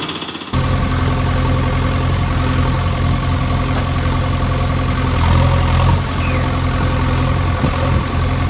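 Engine idling steadily, a low even hum that cuts in abruptly about half a second in.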